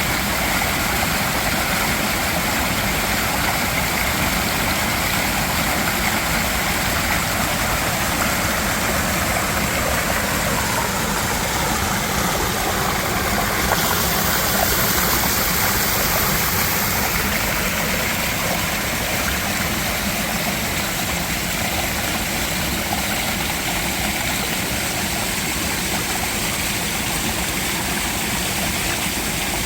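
Mountain valley stream rushing steadily over rocks, with a short rise in the high hiss about halfway through.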